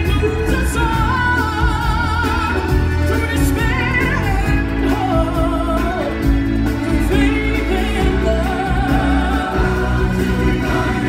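Amplified stage-show music: a singer holding long notes with a wide vibrato over a steady band backing.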